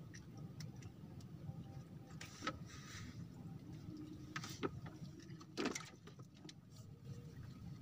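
A few scattered clicks and knocks from a fishing rod and reel being handled on a bamboo raft, over a low steady rumble; the loudest knock comes nearly six seconds in.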